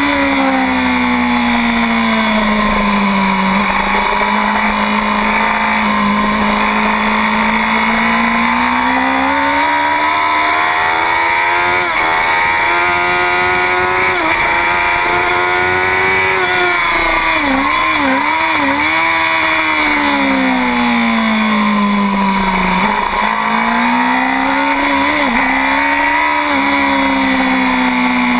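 2009 Honda CBR1000RR superbike's inline-four engine under race load, its revs rising and falling several times as the rider accelerates and rolls off the throttle.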